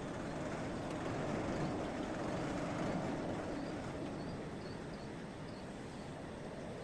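A blacksmith's forge running with a steady rushing noise, swelling slightly for a few seconds in the middle, while a steel nail is heated in it for twisting.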